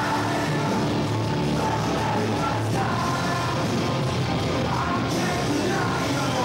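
Loud rock music with singing, held at an even level.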